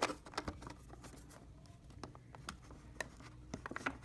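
Scattered small clicks and taps of hands fiddling with a pack of floppy disks while trying to open it, quickening into a run of taps near the end.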